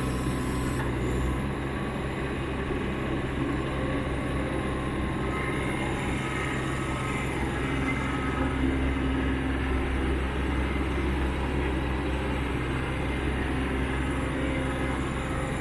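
Kubota KX61-2 mini excavator's diesel engine running steadily.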